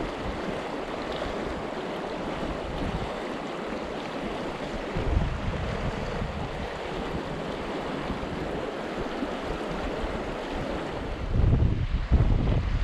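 River water rushing steadily, with wind buffeting the microphone briefly about five seconds in and again near the end.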